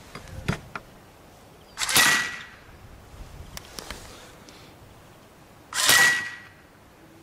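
Two shots from a PCP air rifle about four seconds apart, each a sharp report fading over about half a second, fired over a chronograph at well over 300 m/s. A few light handling clicks come about half a second in.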